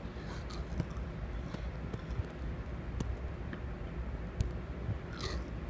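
Close handling noise: plush toys rustling and rubbing against the phone over a steady low rumble, with a few soft knocks and a brief brighter rustle near the end.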